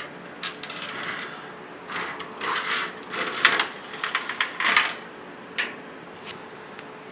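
Steel window grill with a fire-exit panel being handled, its frame and latch rattling, scraping and clicking in a run of short clattering bursts, with the sharpest clicks about three and a half and five seconds in.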